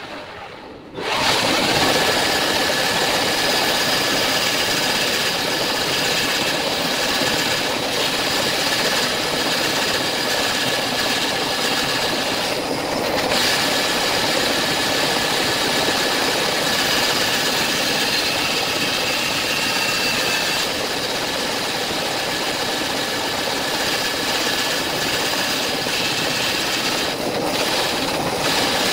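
Bandsaw cutting through a thick block of wet solid wood, shaping the curved profile of a table leg. After a brief dip right at the start, the blade in the wood makes a steady noise with a faint high whine.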